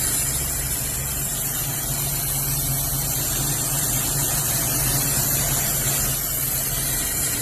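1966 Ford engine running steadily at idle on a newly installed carburetor and fuel filter line, after coming in as a no-start.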